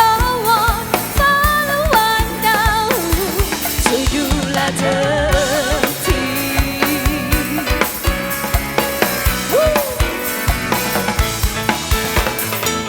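Live band music: a drum kit keeps a steady beat under a wavering lead melody, in a passage between sung lines.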